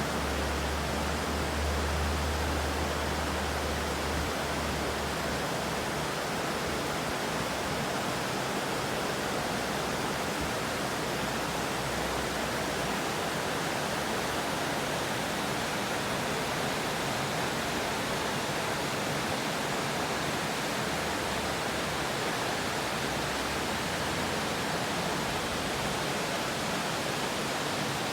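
River water rushing, a steady, even rush with no change in level, with a low rumble underneath for the first few seconds.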